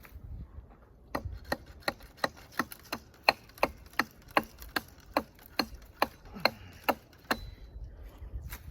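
A quick run of about sixteen sharp, evenly spaced knocks, between two and three a second, starting about a second in and stopping near the end.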